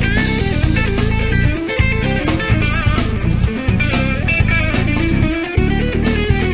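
A jazz-rock band playing an instrumental: electric guitar, bass guitar and drum kit together, with a melodic line moving over the bass and steady drum hits.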